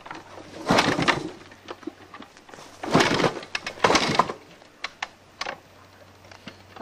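An old dirt bike being kick-started: three hard kicks, each a short burst of mechanical clatter, the engine not catching.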